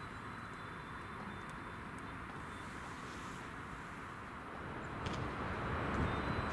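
BLS double-deck electric multiple unit (Stadler KISS, "MUTZ") approaching on the line; its running noise is faint at first and grows steadily louder from about four and a half seconds in.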